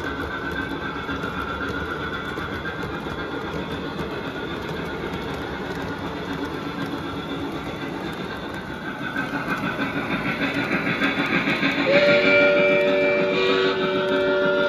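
O-scale model coal train of loaded hopper cars rolling along the track with a steady rumble and wheel clatter, growing louder as the steam locomotive comes past. About twelve seconds in, the locomotive's sound system blows its steam whistle, a held chord of several tones.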